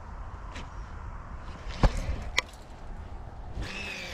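Two sharp clicks from the rod and reel as the jerkbait is worked. Then, near the end, a cast on an Okuma Citrix baitcasting reel: the spool whirs as line pays off, falling in pitch as it slows.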